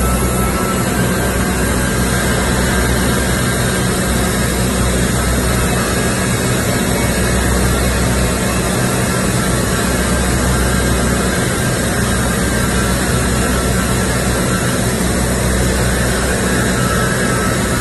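Welding arc on a large steel pipe joint, a steady hiss, over a constant low machine drone.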